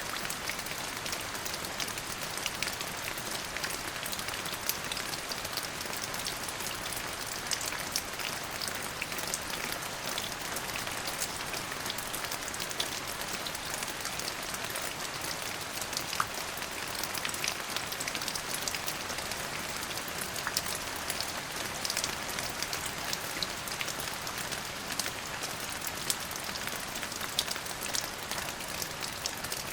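Steady rain falling on a surface, an even hiss with many individual drops ticking and pattering through it.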